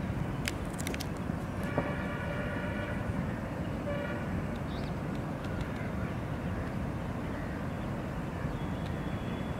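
Steady urban traffic rumble, with a vehicle horn honking for about a second near two seconds in and a short toot again around four seconds.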